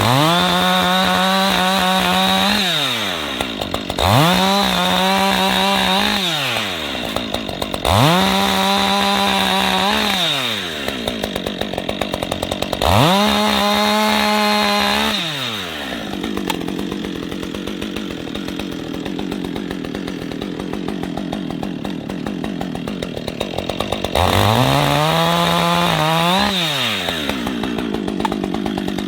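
Chainsaw engine revved to full throttle five times, each rev rising quickly, holding a steady high pitch for about two seconds, then falling back to a ticking idle. It idles for several seconds before the last rev near the end.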